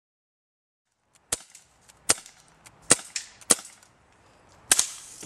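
BB guns firing: a run of sharp cracks starting about a second and a half in, about five loud ones at uneven gaps of roughly half a second to a second, with fainter clicks between.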